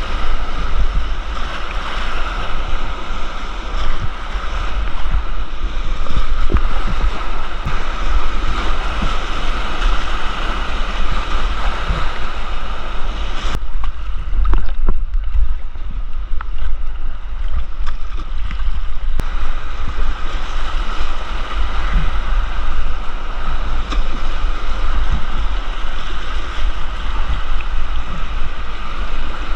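Whitewater rushing around a kayak, with wind buffeting the camera's microphone and a few scattered knocks. About halfway through, the sound turns muffled for several seconds.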